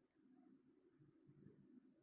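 Near silence: a faint steady high-pitched hiss or tone over a faint low hum.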